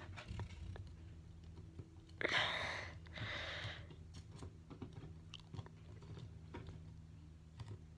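Hands handling a plastic wrestling action figure and fitting a plastic toy championship belt around its waist: scattered small plastic clicks and rustles, with two short louder rustles a couple of seconds in, over a faint low hum.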